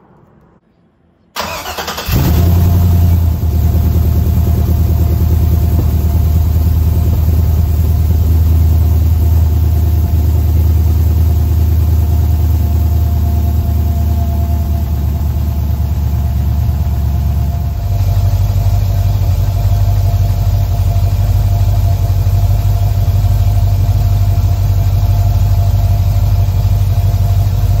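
LS V8 engine cranking briefly and starting about two seconds in, then idling steadily. Its idle note shifts about two-thirds of the way through.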